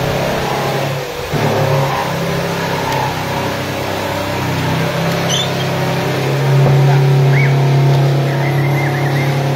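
Cordless drill running in bursts as it drills and drives screws into plywood, with a short stop about a second in and its longest, loudest run over the last three seconds.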